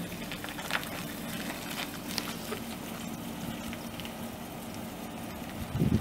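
Pickup truck's 6.0-litre V8 gas engine idling, a steady low hum with scattered faint ticks. Just before the end a much louder, rough noise starts.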